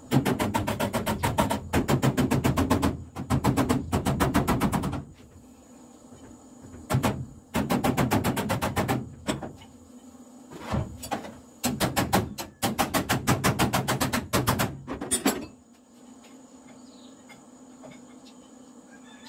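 Hammer tapping on a Toyota Celica's steel bonnet during panel beating, knocking up a sagging section of the bonnet frame while an engine hoist pulls on it. Several bursts of rapid metallic taps, a few seconds each, with single knocks between them. The tapping stops about three-quarters of the way through.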